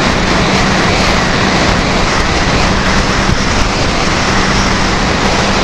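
Snowmobile riding steadily along a trail: a constant engine hum under a loud, even rushing noise that does not change.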